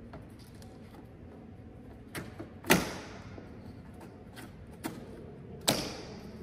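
Window screen being fitted into an aluminium window frame from inside: light clicks, then two sharp knocks about three seconds apart as the screen frame strikes the window frame.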